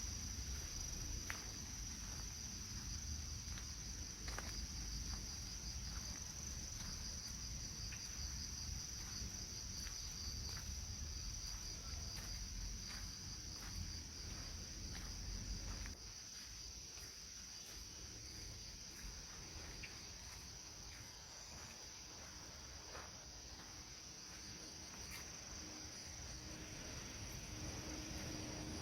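Insects chirring steadily in an even, high band with a fast pulse, over a low rumble that drops off about halfway through.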